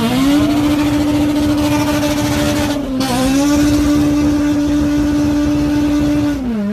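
Car engine running at high, steady revs. Its pitch dips briefly and climbs back twice, then drops to a lower pitch near the end.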